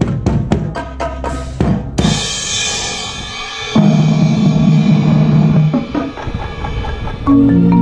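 Marching band playing: a quick run of sharp drum hits, then a cymbal crash about two seconds in, followed by loud sustained low band chords. Near the end a marimba plays short mallet notes over the chords.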